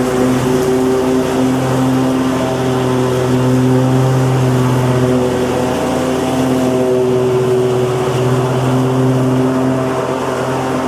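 Petrol lawn mower engine running steadily at a constant speed, its note holding at one pitch with slight swells in strength.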